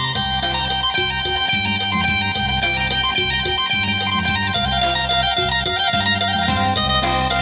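Electric phin, the Thai plucked lute, picking a bright melody over a bass line and a steady beat.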